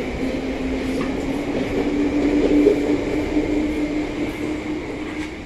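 Bakerloo line 1972 Stock tube train pulling out and accelerating away, its motors whining with a slowly rising pitch over the rumble of the wheels. The sound fades toward the end as the train moves off.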